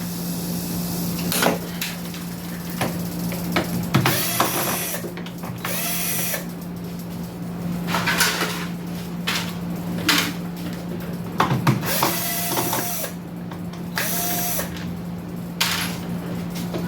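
Power screwdriver or drill backing out the screws of a speaker box's top panel, in a string of short runs, each motor whine rising and falling within about a second.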